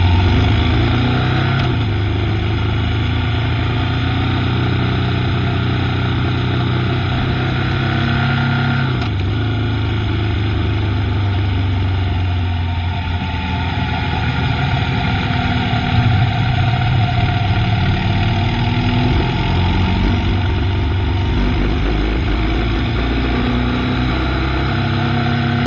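Motorcycle engine running under way, with wind rushing past. The engine pitch drops about a third of the way in and climbs again later as the throttle and gears change.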